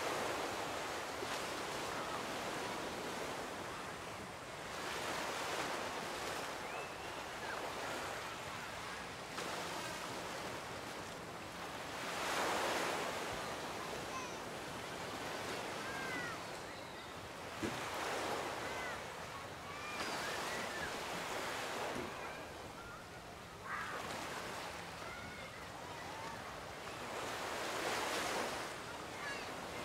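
Ocean surf washing onto a sandy, rocky shore, the wash of the waves swelling and receding every few seconds.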